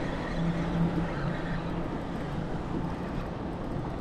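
Wind noise on the microphone, with a steady low hum underneath.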